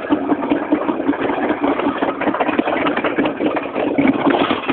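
Rollercoaster car running along its track: a loud, steady rattle and rumble, heard through a phone's microphone.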